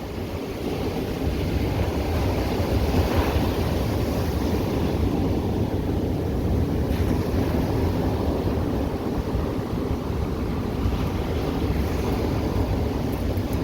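Ocean surf washing ashore in a continuous rush, with a wave swelling louder about three seconds in. Wind rumbles on the microphone underneath.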